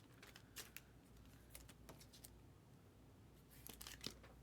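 Near silence with faint, scattered clicks and taps of trading cards being handled and shuffled through.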